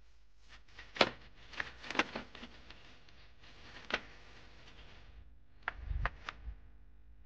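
Plastic Bruder toy dump truck being pushed through wet dirt: scattered sharp clicks and knocks with faint gritty scraping, and a cluster of knocks over a low rumble near the end.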